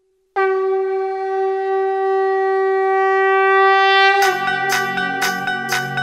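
A conch shell blown in one long, steady note for about four seconds, opening an aarti. Just after four seconds, music comes in with percussion strikes about twice a second.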